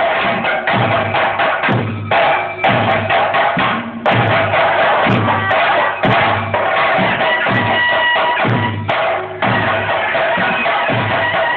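Drums beating a steady, fast rhythm, with a deep beat about twice a second under a dense layer of sharper strokes.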